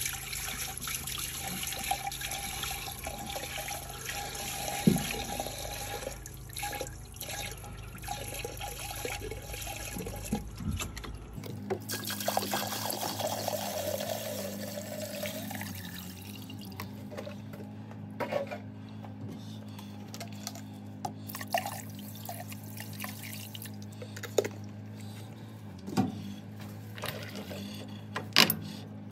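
Kerosene poured from a bottle into a lathe's open headstock gearbox, the stream splashing over the gears and trickling into the cast-iron casting. The pouring thins out in the second half, with a few light knocks.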